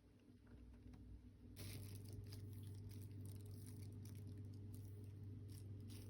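Faint room tone: a low steady hum comes in about a second and a half in, with faint scattered ticks.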